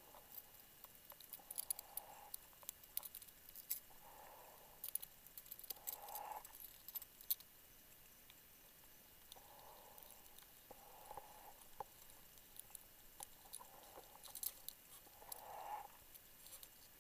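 Faint underwater sound picked up through a camera housing: scattered tiny clicks and ticks, with a soft muffled hiss swelling and fading every two to four seconds.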